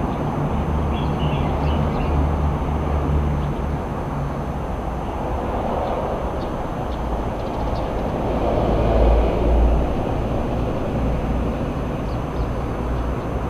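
Steady low outdoor rumble with a low engine-like hum underneath, swelling briefly about nine seconds in.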